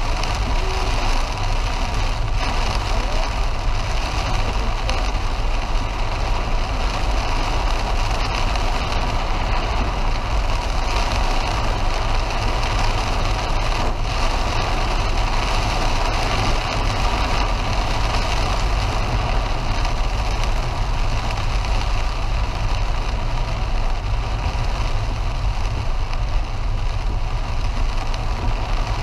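Car driving on a wet road in heavy rain, heard from inside the cabin: a steady low road and engine rumble under an even hiss of rain and tyre spray.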